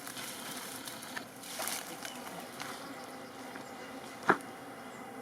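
Honeybees buzzing steadily in numbers around their hive entrance, with one sharp knock about four seconds in.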